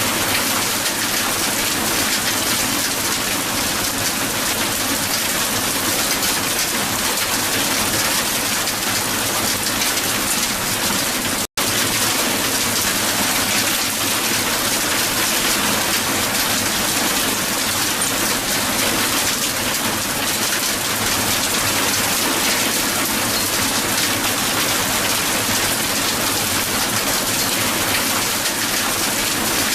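Hail falling on a hard surface: a dense, steady patter of countless small impacts. It cuts out for an instant about eleven and a half seconds in.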